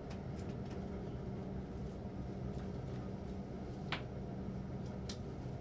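A steady low hum, like a fan or appliance motor, with two short sharp clicks about four and five seconds in.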